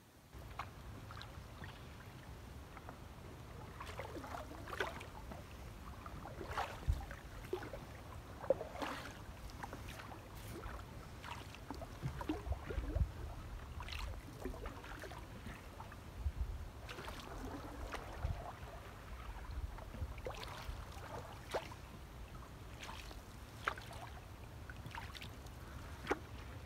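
Canoe being paddled through still floodwater: irregular paddle dips and splashes with dripping water, and scattered small knocks and a few low thuds.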